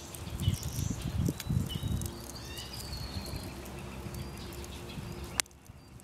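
Sticks and pieces of wood knocked and shifted by hand in a metal fire pit, with several dull knocks in the first two seconds. Birds chirp in the background, and a single sharp click comes about five seconds in.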